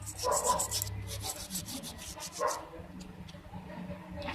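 Rapid scratchy scraping or brushing strokes on a phone's parts, about nine a second, stopping about a second in, followed by a few softer scuffs.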